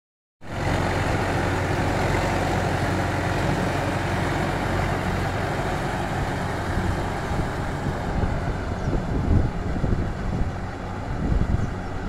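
Farm tractor's diesel engine running steadily while it pulls a rotary tiller through a flooded rice paddy, puddling the mud. The sound grows less even in the second half as the tractor moves off.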